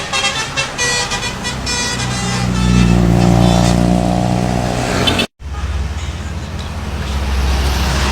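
Bus 'telolet' multi-tone horn playing a quick run of changing notes, followed by the bus's diesel engine running loud and steady. A little past halfway the sound cuts out for a split second, then the low engine rumble carries on.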